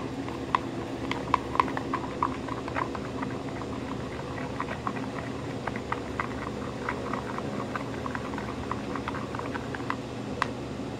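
Spoon stirring a thickening shampoo-and-salt slime mixture in a plastic bowl: quick, irregular wet clicks and squelches, several a second, busiest in the first few seconds.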